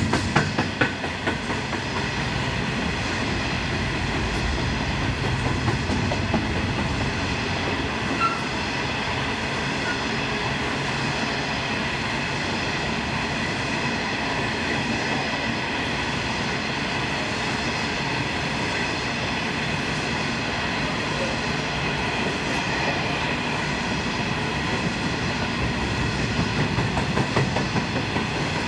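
A train rolling past at the line side, its steel wheels clattering over the rails in a steady, unbroken run, with a thin steady whine above the rumble.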